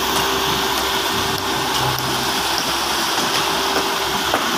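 Concrete mixer truck running as wet concrete pours down its discharge chute: a steady rushing, sliding noise over the truck's steady engine hum.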